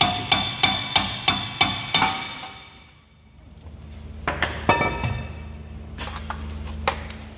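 Rapid hammer blows on metal, about three a second, each ringing with a metallic tone. The strikes stop about two seconds in, and a few scattered metal clanks follow.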